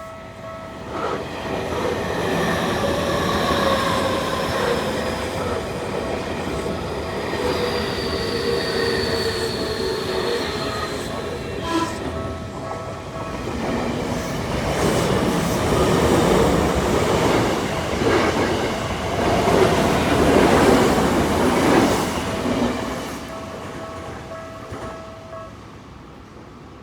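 A Tokyu Toyoko Line train passing a level crossing: a motor whine gliding down in pitch, then the wheels rumbling and clattering over the rails, loudest a few seconds past the middle before fading. A level crossing warning bell rings throughout and stops shortly before the end.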